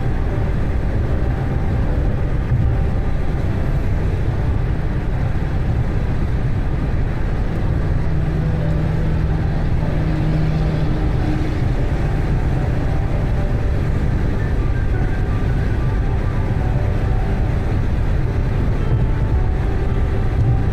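Steady road and engine noise of a car driving on a highway, a loud low rumble, with a low hum standing out for a few seconds near the middle.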